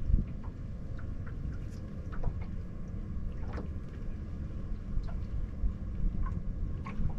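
Low, steady rumble of an aluminium fishing boat sitting on the water, with scattered light ticks and small knocks.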